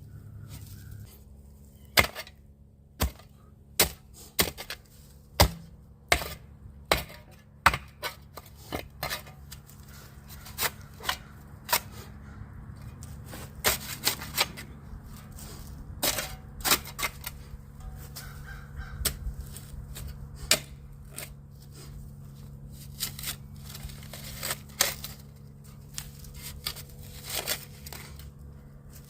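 A hand tool striking hard again and again, irregularly, about once a second, over a faint steady low hum.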